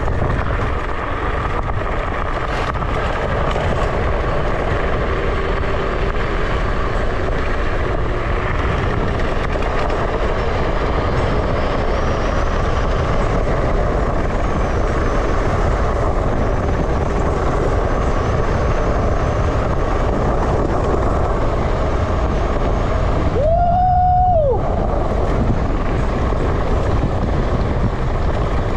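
Wind buffeting the microphone and tyre rumble from a moving electric off-road scooter, with a faint motor whine that rises in places. About 24 seconds in, a brief high pitched tone sounds for about a second.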